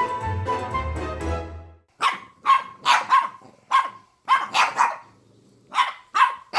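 Background string music that stops about two seconds in, followed by a dog barking repeatedly in quick bursts of two or three barks, with a short pause about two-thirds of the way through.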